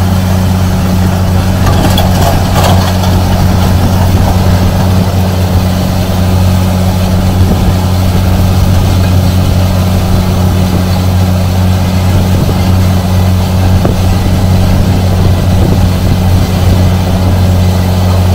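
Tracked tractor's diesel engine running steadily while pulling a seeder, a deep even drone that holds the same pitch throughout.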